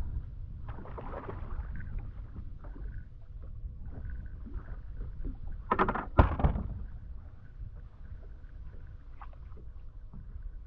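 Steady low rumble on a small bass boat on the water, with scattered light knocks, and one loud, brief burst of noise about six seconds in.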